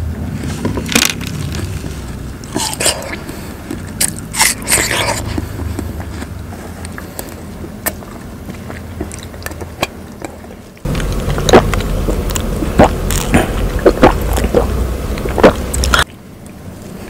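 Close-miked mouth sounds of a person eating and drinking watermelon: chewing and wet smacks, then sipping iced watermelon juice through a straw. Many short clicks and smacks throughout, growing louder about eleven seconds in.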